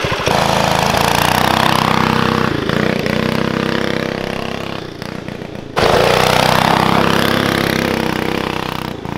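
Go-kart's Predator 212 single-cylinder four-stroke engine running hard at a steady, governed speed as the kart drives across dirt, fading as it pulls away. A little over halfway through it comes back suddenly loud and fades away again.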